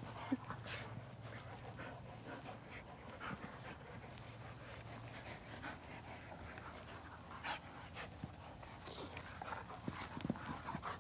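Two young dogs play-wrestling, breathing hard and panting, with faint scuffling and soft mouthing sounds.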